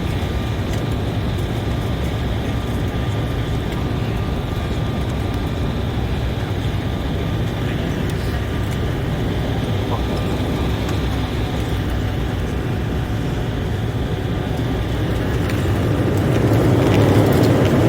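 Steady cabin noise of an Embraer E190 during a go-around, its twin GE CF34-10E turbofans under power. Near the end the engine noise swells louder as more thrust comes in for the steep climb.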